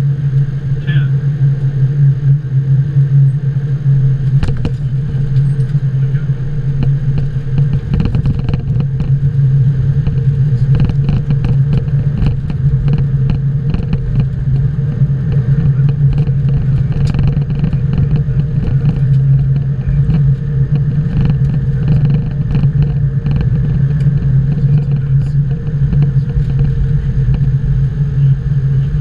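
Boeing 777-200 flight deck on the landing roll: a loud, steady hum, with a low rumble that grows much stronger about eight seconds in and a stream of knocks and rattles from then on.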